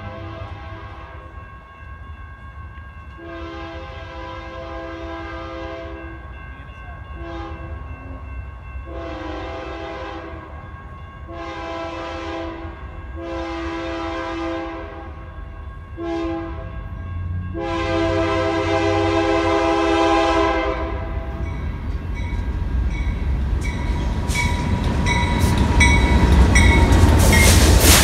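BNSF diesel freight locomotive horn sounding a series of blasts as the train approaches. The blasts run long, long, short, long, the grade-crossing signal, and are followed by further long blasts. The locomotives' engine rumble and the wheel clatter on the rails then build steadily, loudest as the lead units pass close near the end.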